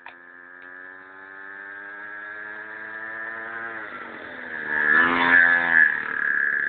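Mini ATV's small engine running, its pitch creeping up gradually, then dipping and coming back louder with revs near the end, with a steady high whine over it.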